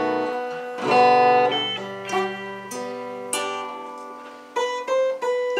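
Guitar playing the closing bars of a song with no singing: a strum about a second in, then single plucked notes ringing out one after another.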